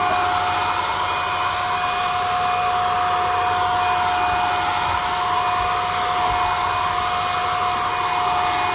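Handheld electric paint spray gun running while spraying paint onto wood: a steady, unchanging whine over the hiss of the spray.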